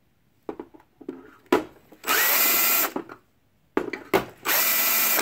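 Power drill run in two short bursts, the first with a rising whine as the motor spins up, backing screws out of the projector's bottom case. A few light handling clicks come before each run.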